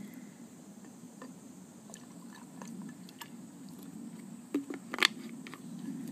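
Hongcho blueberry drinking vinegar poured from a bottle over ice cubes in a glass, a soft liquid pour with faint ticks of ice. About four and a half seconds in come two sharp knocks, the second the loudest.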